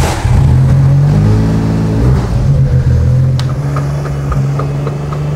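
John Deere Gator utility vehicle's gasoline engine running as it drives through snow, revving up briefly about a second in and then running steadily. A gust of rushing noise at the very start.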